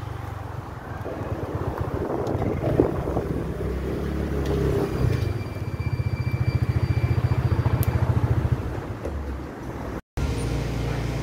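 Honda Elite 125 scooter's single-cylinder four-stroke engine running at low speed as the scooter rolls slowly along. It has a steady pulsing exhaust beat that is clearest in the middle and eases off near the end.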